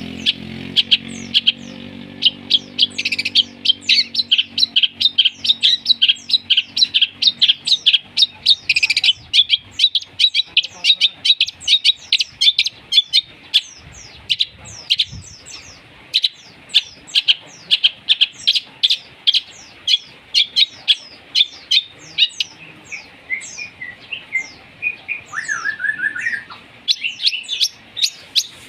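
Sparrows and lovebirds chirping rapidly and without pause, the high, sharp chirps of a sparrow squabble mixed with lovebird calls. A low hum fades out in the first few seconds.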